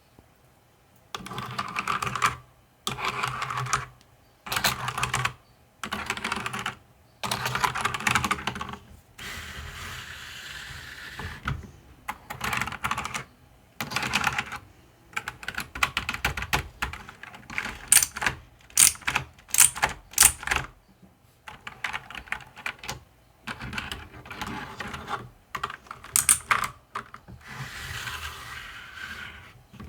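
Typing on a mechanical keyboard: bursts of rapid key clicks about a second long, with short pauses between them. A few sharper single keystrokes stand out in the middle.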